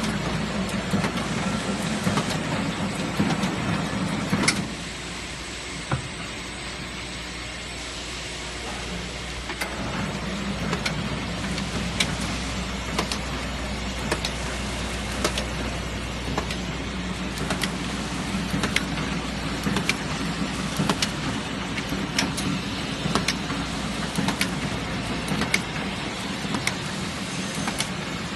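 Semi-automatic book sewing machine (Boway SXB 440) running, a steady mechanical hum with sharp clacks roughly once a second as it cycles. The low hum drops away about five seconds in and comes back near ten seconds.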